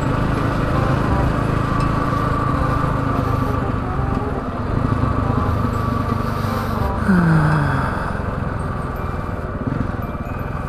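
KTM 690 Enduro's single-cylinder engine running steadily while riding. About seven seconds in, the engine note drops sharply as the revs fall.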